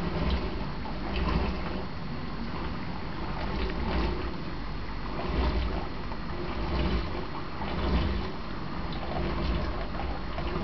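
Steady aquarium water-circulation and pump noise: a continuous wash with a low rumble that swells and fades irregularly.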